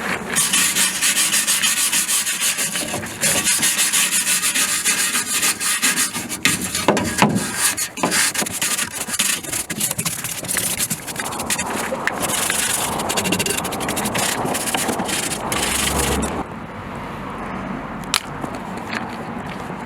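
Rapid abrasive scrubbing on the rusty steel chassis underside, with many short rubbing strokes, the rust being cleaned off ahead of an anti-corrosion coating. It stops about three-quarters of the way through, leaving a quieter background with a few clicks.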